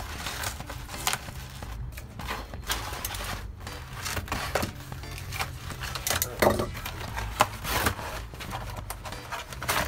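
Utility knife cutting open a cardboard box, with irregular scraping and tearing strokes and the cardboard being handled.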